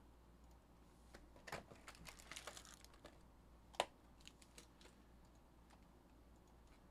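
Quiet handling of a trading-card hobby box and its foil packs: a cluster of light clicks and rustles between about one and a half and three seconds in, then one sharp click near four seconds.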